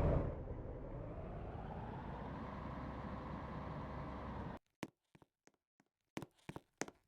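A heavy machine running: a loud start settling into a steady low rumble that cuts off suddenly after about four and a half seconds. Then short regular clicks, about three a second.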